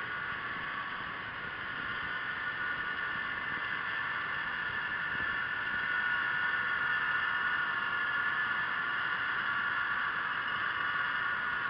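Steady whine with several high, slightly wavering tones over a faint hiss, heard from under water: the electric drive motor and propeller of a radio-controlled model submarine. It grows a little louder about halfway through.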